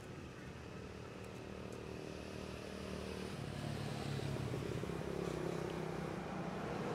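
Low engine hum of a motor vehicle, growing louder from about three seconds in as it comes closer.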